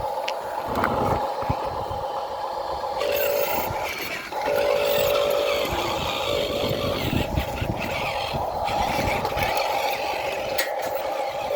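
Electric motors of remote-control toy construction vehicles whining steadily, with a second, lower-pitched motor switching on and off several times.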